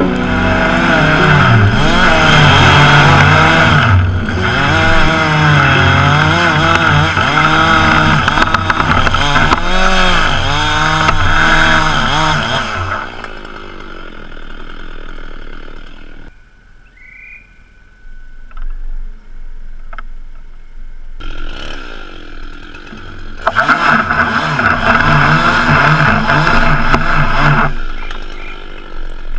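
Chainsaw running under load, its engine pitch rising and falling as it cuts. It drops away for several seconds in the middle, then runs hard again near the end.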